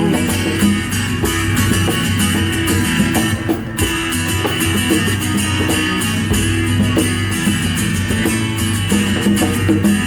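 Guitars and bass guitar playing the instrumental ending of the song, strummed in a steady rhythm with no singing.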